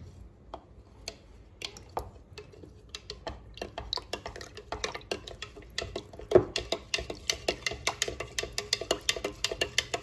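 Green plastic spoon stirring fresh yeast into water in a plastic measuring beaker, dissolving the yeast cube: quick clicking taps of the spoon against the beaker, sparse at first, then about five a second from a few seconds in, with one louder knock a little past the middle.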